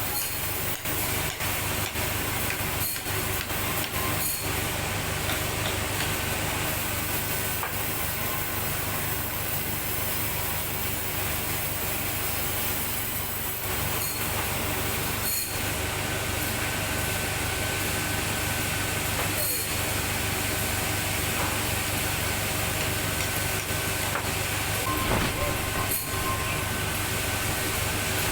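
Sawmill machinery running steadily, a constant motor hum with a hiss of saw noise and occasional sharp knocks.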